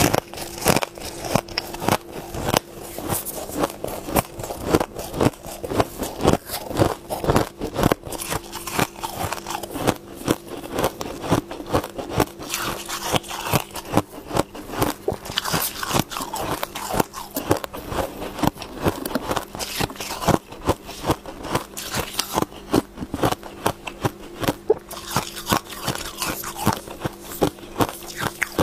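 Close-up crunching of white frost ice being chewed: a continuous run of sharp, crisp cracks as mouthfuls of hard frozen ice break between the teeth. A faint steady hum sits underneath.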